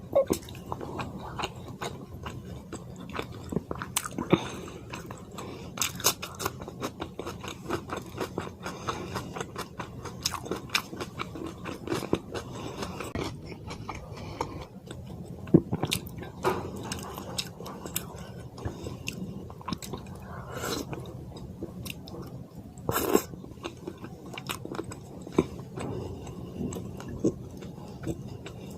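Chewing and mouth sounds of a person eating fish curry with white rice: a steady run of small wet clicks and smacks, with one longer, louder sound in the later part.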